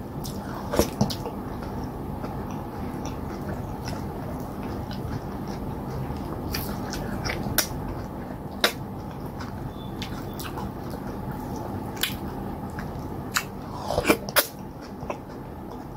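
Hand-eating of cassava fufu with slimy okra stew: soft wet squishing and scattered sharp mouth clicks and smacks of chewing, loudest in a quick cluster near the end, over a steady low background hum.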